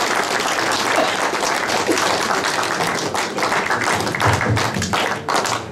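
Audience applauding with steady, dense clapping at the end of a talk.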